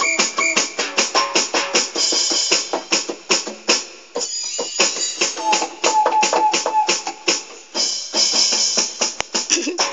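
Drum-kit sounds played on an electronic keyboard: a fast, steady run of drum and cymbal hits, several a second, with short pitched tones mixed in now and then.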